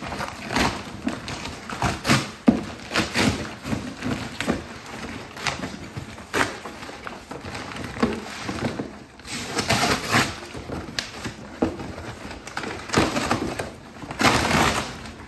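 Cardboard shipping box being torn open by hand: irregular ripping and crumpling of the cardboard and packing tape, loudest about ten seconds in and again near the end.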